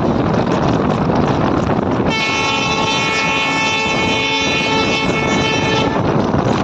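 Passenger train running at speed, with wind noise on the microphone and the rumble of wheels on the track. About two seconds in, the locomotive's horn sounds one long, steady blast lasting nearly four seconds.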